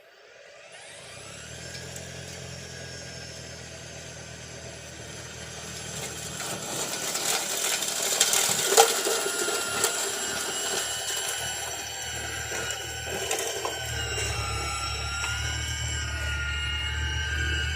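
Battery-electric two-stage snowblower's motors spinning up from rest with a rising whine, then running steadily with several whining tones over a low hum that strengthens about two thirds of the way through.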